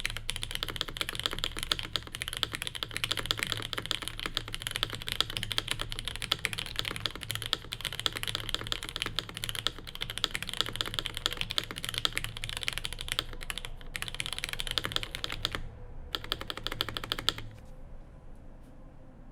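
Continuous fast typing on a Cherry G80-3000 mechanical keyboard with lubed and filmed Cherry MX Black linear switches in a plateless build. The keystrokes pause briefly, resume, then stop near the end.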